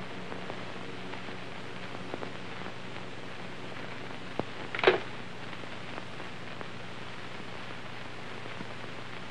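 Steady hiss and low hum of an old film soundtrack, with scattered faint clicks and one louder crackle about five seconds in.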